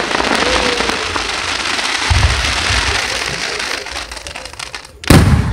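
Aerial fireworks: a dense crackling as a shell's gold stars burn out, with a low thud about two seconds in, the crackle dying away, then a sharp, loud bang of the next shell bursting about five seconds in.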